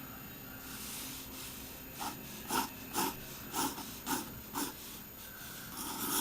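HB pencil drawing on sketch paper: a series of short strokes, about two a second, then steadier continuous scratching near the end.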